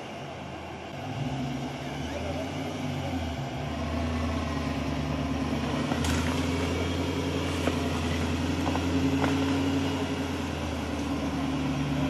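Off-road 4x4 vehicle's engine running steadily at an even speed, getting a little louder over the first few seconds.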